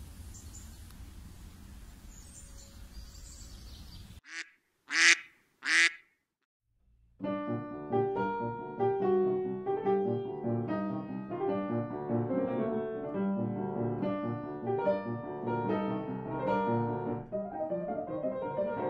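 Steady outdoor street noise with a low hum for about four seconds, then three short honks in quick succession and a second of silence. Solo piano music plays for the rest.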